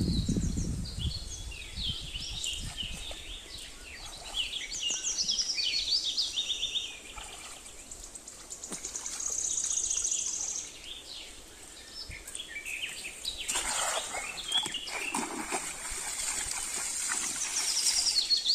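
Small birds calling in quick, repeated high chirps, with a steady high trill about nine to ten seconds in. Over the last few seconds a louder rushing noise covers them.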